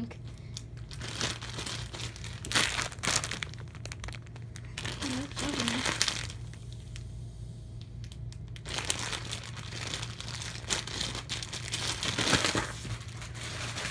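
Plastic packaging crinkling and rustling in several irregular bursts as it is handled and opened.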